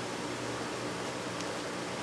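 Steady background room noise: an even, fan-like hiss with a faint low hum, and one faint tick about halfway through.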